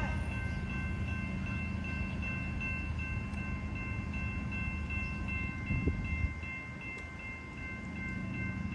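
Grade-crossing warning bell ringing steadily and rapidly over a continuous low rumble, with a brief knock about six seconds in.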